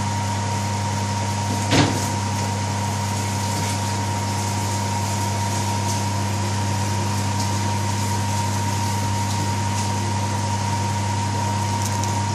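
A steady machine hum with a constant thin whine and hiss, over onions gently frying in oil in a pan, with a few faint ticks. A single knock about two seconds in.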